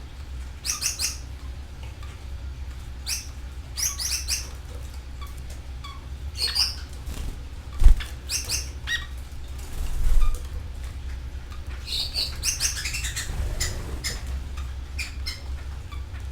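Canaries in an aviary giving short, sharp chirps and calls in scattered clusters, with wings flapping. A sudden low thump about eight seconds in, over a steady low hum.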